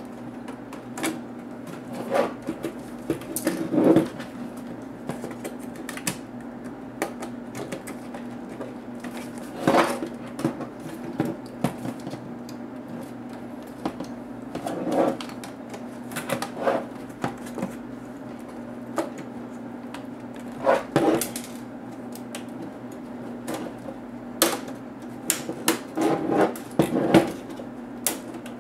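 Plastic case parts of a Compaq NX7400 laptop clicking, creaking and knocking irregularly as they are pried and pulled apart by hand, over a steady low hum.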